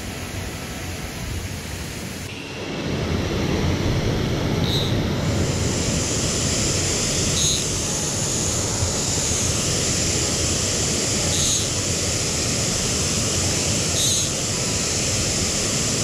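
Steady rush of a waterfall and stream; about two and a half seconds in, it gives way to louder, rougher wind buffeting a body-worn camera's microphone over the running water. A faint short high chirp comes every few seconds.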